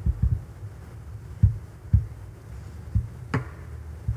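Low muffled thumps and knocks picked up by the desk microphones, about eight of them at uneven spacing, with one sharper click a little past three seconds, over a low steady hum.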